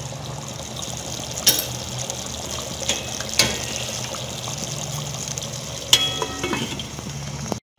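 Chickpea curry boiling hard in a pot, a steady bubbling with a few sharp clicks. About six seconds in, a metal lid is set on the pot with a ringing clink, covering it to cook on dum.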